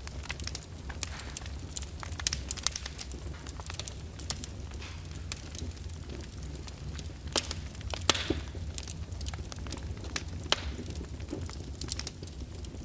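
Fire burning in a fireplace, crackling with irregular sharp pops over a steady low rumble. Several louder pops come in the second half, one followed by a brief hiss.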